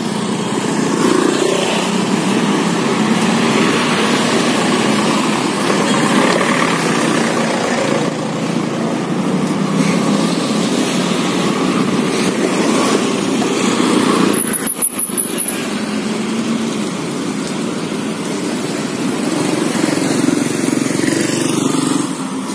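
Street traffic of motorbikes and scooters passing by, their small engines running steadily over road noise.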